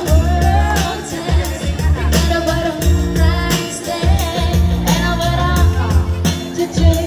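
Women singing a pop song into microphones over amplified music with a heavy bass and a steady beat.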